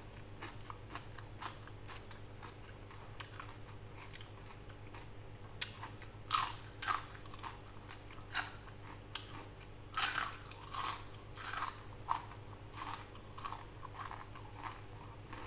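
A person chewing and crunching food close to the microphone, in irregular short bursts that are busiest from about six to twelve seconds in.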